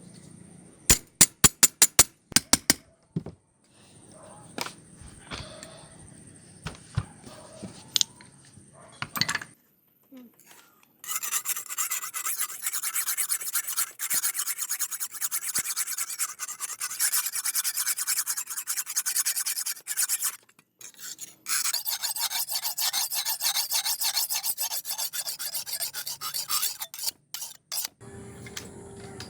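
Hand rasping of the cleaver's steel, an abrasive worked back and forth in fast strokes in two long runs, the second starting after a short pause. A quick series of sharp clicks comes a couple of seconds before them.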